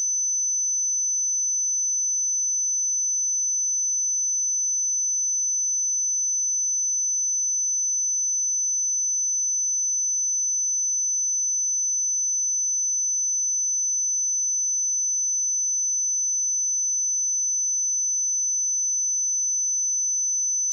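Steady pure sine-wave test tone at 6058 Hz, a single high-pitched whistle-like tone held at constant level.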